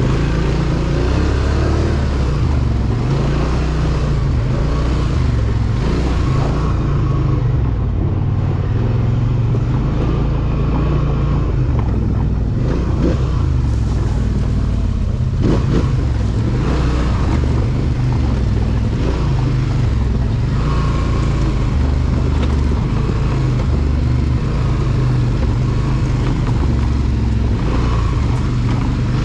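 ATV engine running under way on a trail ride, a steady low drone that shifts in pitch and load. A single sharp knock sounds about halfway through.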